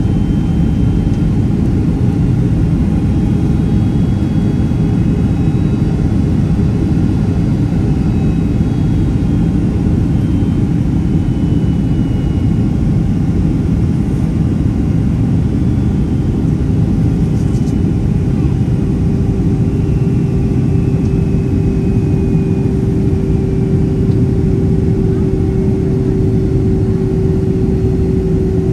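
Cabin noise inside a Boeing 767-300ER on approach: a steady low rumble of engines and airflow. A steady hum comes up and grows stronger from about two-thirds of the way in.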